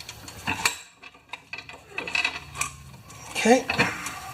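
Scattered light clicks and clatter of small hard parts being handled while a lawn mower's recoil starter is re-roped.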